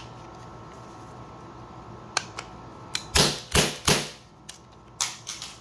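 Gamo P-430 CO2 air pistol being worked by hand: a few light clicks, then three loud sharp snaps about a third of a second apart, then more clicks near the end.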